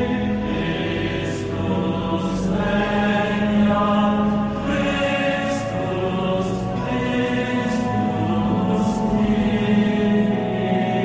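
A slow hymn or chant is sung with long held notes, the words coming slowly.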